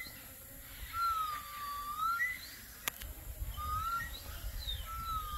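Three clear whistled notes, the first and last each about a second long: each sags a little in pitch and then turns up at the end, with short higher chirps between them.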